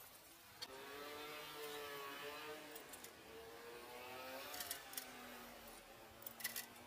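An engine revving, its pitch rising and falling, with a few sharp clicks near the end.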